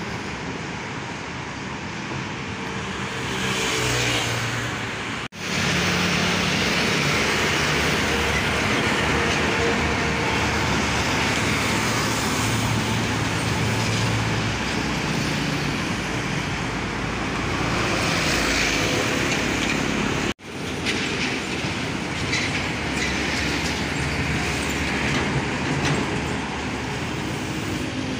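Busy road traffic passing close by: container-hauling tractor-trailers and cars with engine drone and tyre noise. The sound drops out for an instant twice, about five seconds in and about twenty seconds in.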